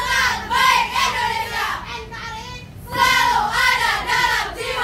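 A group of women singing a yel-yel cheer together in unison, in short sung phrases, with a brief dip about two seconds in before the next phrase.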